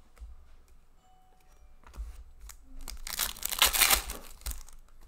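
Foil hockey-card pack being torn open and its wrapper crinkled by hand: a loud burst of tearing and crackling about three seconds in, lasting about a second and a half, after quieter rustling of the cards.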